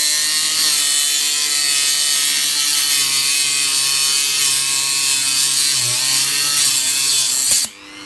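Dremel rotary tool run at slow speed, cutting into the laptop's metal chassis: a steady motor whine with grinding noise, its pitch wavering as the tool bites. It cuts off suddenly near the end.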